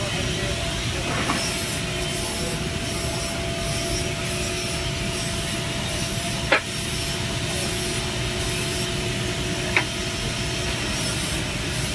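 Steady workshop machinery noise with a low two-tone hum, broken by two sharp clicks about six and a half and ten seconds in.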